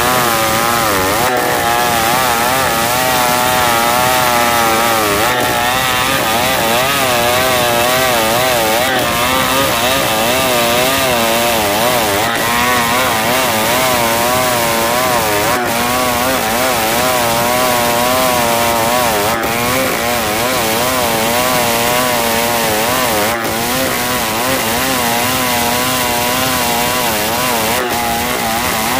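Two-stroke chainsaw ripping a pule (Alstonia) log lengthwise into boards, running steadily under load with its engine note wavering up and down.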